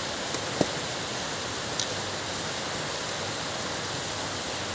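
Steady rushing hiss like rain, with a few light clicks, the sharpest about half a second in.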